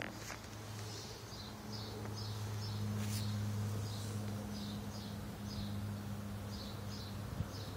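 A bird chirping repeatedly outdoors: short, high, downward-slurred notes, about two a second, over a steady low hum.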